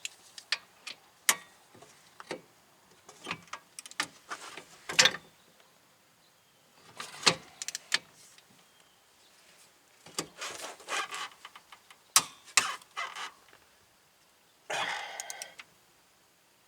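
Metal tools clinking and knocking against a rear hub bearing assembly, with a few short spells of rapid clicking from a hand ratchet turning a hub bearing bolt.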